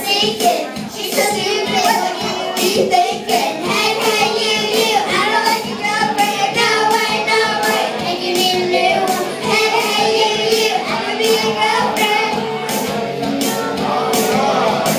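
Two young girls singing a pop song into microphones over a karaoke backing track with a steady beat.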